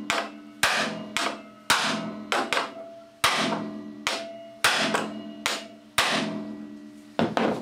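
Hammer striking the top of a manual impact screwdriver, a series of sharp metallic blows about once a second with lighter taps between, each ringing briefly. The shock of the blows, with the driver set to turn anticlockwise, works loose a stripped Phillips screw in a tapped metal plate.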